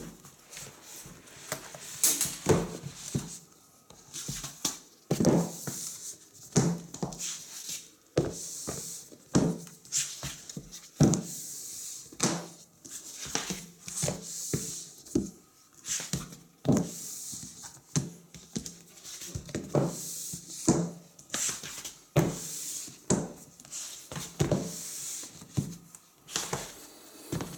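Large hardcover books being handled and set down one after another on a tabletop: repeated knocks, with sliding and rubbing sounds between them.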